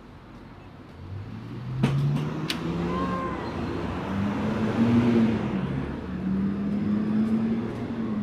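A motor vehicle's engine pulling away and accelerating close by, its pitch climbing in steps as it works up through the gears. Two sharp clicks come about two seconds in.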